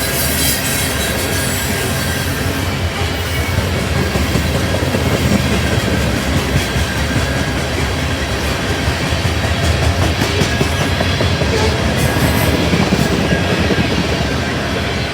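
Freight train cars rolling past steadily, with a low rumble and the wheels clicking over the rail joints.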